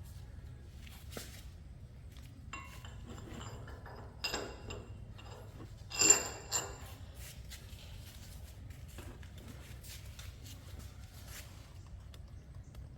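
Scattered metal knocks and clinks of heavy parts and tools during truck hub and brake rotor work, with two ringing metal-on-metal strikes, the louder about six seconds in and a smaller one about two seconds before it.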